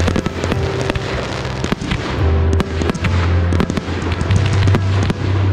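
Consumer fireworks going off in a rapid, dense string of sharp pops and bangs, with music and a steady heavy bass underneath.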